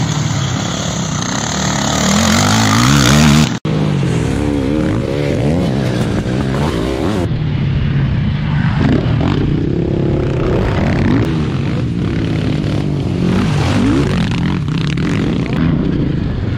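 A racing quad's engine revs up, climbing steadily in pitch, and cuts off abruptly a few seconds in. After that, motocross sidecar outfits' engines rev up and down as they ride through a corner.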